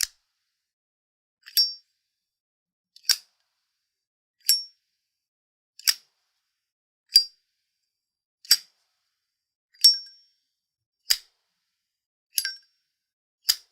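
Zippo windproof lighter's metal lid clicking, about eleven separate sharp clicks roughly every second and a half, each with a short high metallic ring.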